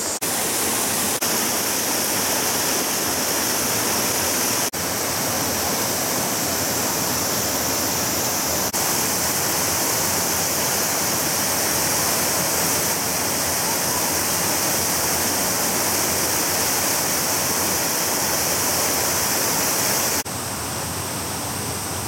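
Shallow rocky mountain stream rushing and splashing over boulders in small cascades, a steady full rush of water. About 20 seconds in it drops to a quieter level.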